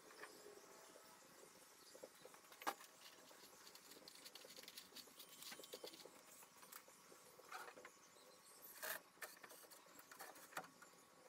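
Near silence with faint scattered clicks and scratchy taps of hand work on gas pipe fittings, a sharper tap about two and a half seconds in and a cluster of louder clicks near the end.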